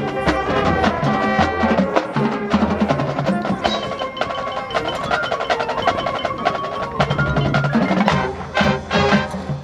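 A high school marching band playing, with the front-ensemble mallet percussion (bells, marimba and xylophone) striking quick, ringing notes over sustained low brass and drums.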